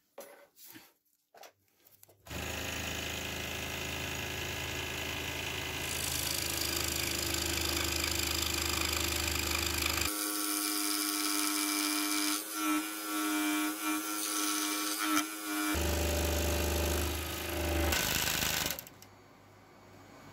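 Pégas 21-inch scroll saw starting about two seconds in and running steadily, its fine No. 1 fretsaw blade without reverse teeth cutting through 28 mm ash hardwood. The motor stops near the end.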